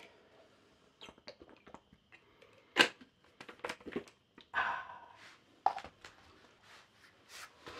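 Drinking from a clear plastic water bottle: scattered clicks and knocks of the cap and bottle being handled, with one sharp knock about three seconds in, then swallowing and breathing noises.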